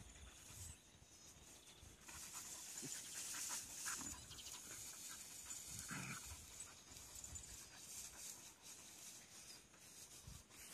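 Siberian husky and a small dog at play in dry grass: faint dog panting, with scuffling in the grass. A brief lower sound comes about six seconds in.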